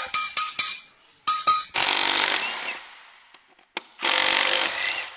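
A power tool run in two bursts of about a second each, with a series of sharp, ringing metallic clicks before the first burst.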